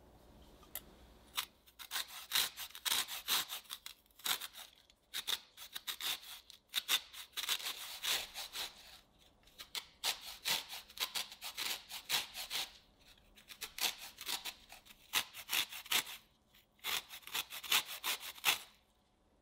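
Lemon rind rubbed against a fine metal grater: quick, repeated scraping strokes in runs of a few seconds with short pauses between, the sound of zesting a lemon.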